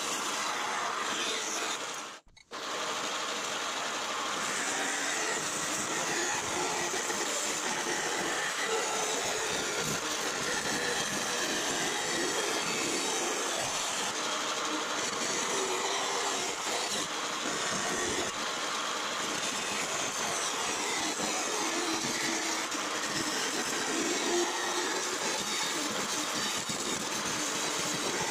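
Vertical bandsaw running with its blade cutting thin 0.063-inch aluminum sheet, a steady whirring grind as the sheet is fed along the marked lines. The sound cuts out briefly about two seconds in, then resumes.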